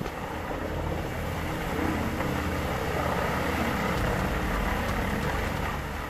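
Vermeer WC2500XL whole-tree chipper running steadily under load, its 213-horsepower engine rumbling while the infeed pulls tree stems in and chips them.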